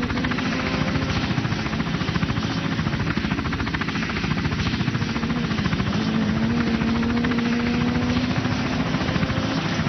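Helicopter running steadily: a fast, even rotor chop under a steady engine hum.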